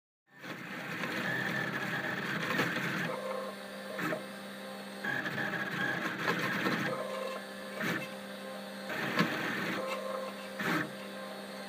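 Homemade delta 3D printer printing, its stepper motors whining as the print head moves, the pitch switching every second or two between a higher and a lower whine. Several short sharp clicks come through it.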